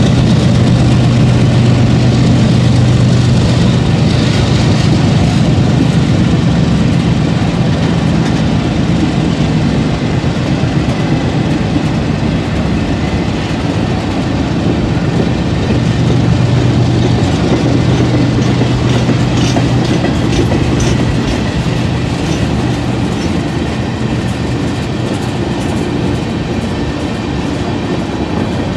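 CSX freight train rolling past, a loud steady rumble over a low drone, with the wheels clicking over the rail joints more and more in the second half.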